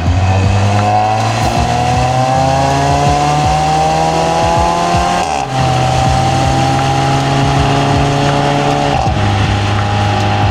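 Audi A4 B9's 2.0 TFSI turbocharged four-cylinder engine accelerating under load, its note rising for about five seconds. It breaks briefly for an upshift, then runs at a steady pitch, with another small change about nine seconds in. Tyre and road noise sit underneath.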